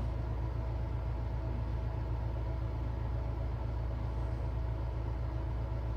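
Steady low mechanical hum with a faint, even tone above it; nothing starts, stops or changes.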